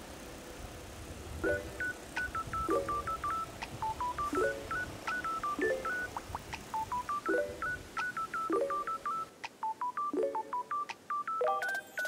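Background music: a bright melody of short, beeping synth notes, several a second, over a simple chord that repeats about every second and a half. It starts about a second and a half in, after a faint steady hiss.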